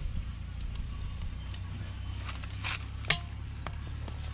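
Steady low rumble with a few scattered sharp clicks, about two to three seconds in and again near the end.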